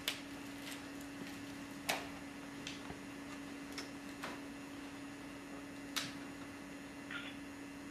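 Scattered sharp clicks and taps, a few seconds apart, over a steady low hum; the strongest come at the very start, about two seconds in and about six seconds in.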